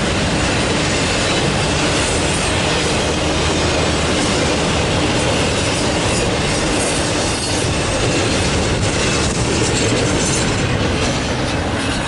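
Freight train cars rolling past close by, a steady loud rumble and rattle of steel wheels on the rails with some clicking over rail joints.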